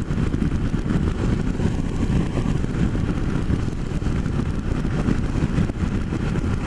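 Kawasaki Versys parallel-twin motorcycle cruising steadily at road speed: engine drone mixed with wind rush on the helmet camera's microphone.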